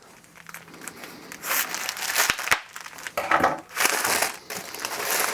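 Packaging crinkling and rustling in several bursts as items are handled and lifted out of a box, with a couple of sharp clicks about halfway through.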